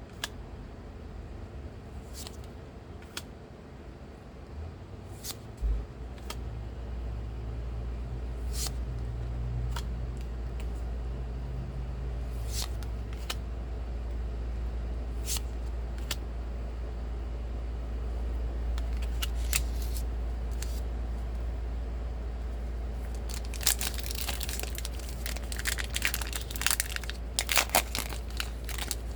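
Foil Pokémon booster pack wrapper crinkling and tearing open, with scattered light clicks of cards being handled. The crinkling grows dense near the end.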